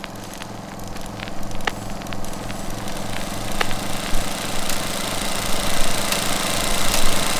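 Old-film style noise: a low hum pulsing about five times a second, with scattered crackles and pops. A hiss swells and the whole grows steadily louder.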